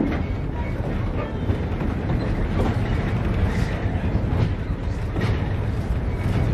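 Narrow-gauge heritage train running along the track: a steady low rumble with scattered wheel clicks.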